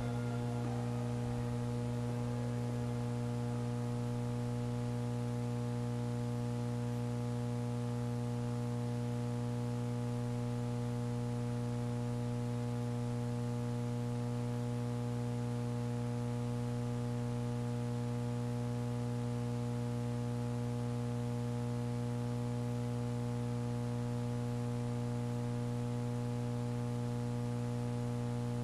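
Steady electrical mains hum: a constant low buzz with a stack of overtones and a faint hiss underneath. The last of the background music fades out in the first second or so.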